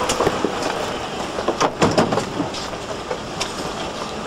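Steady outdoor street noise with a few sharp knocks clustered about halfway through.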